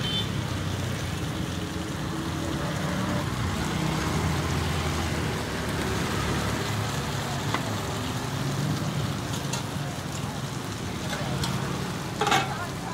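Bánh xèo batter, shrimp and bean sprouts sizzling in oiled woks over wood fires, a steady frying hiss with a low rumble underneath.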